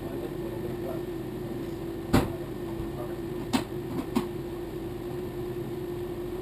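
Three sharp knocks over a steady hum: the loudest about two seconds in, then two more close together a little over a second later.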